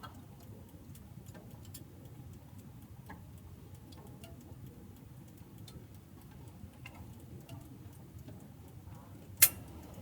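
Split firewood burning in a wood stove, crackling with scattered small ticks over a low steady rumble, and one loud sharp pop about nine seconds in.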